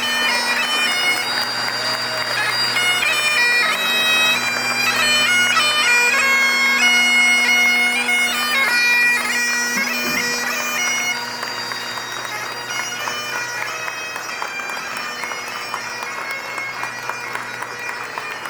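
Bagpipes playing a tune: a stepping melody of held notes over steady drones. The music grows quieter about eleven seconds in.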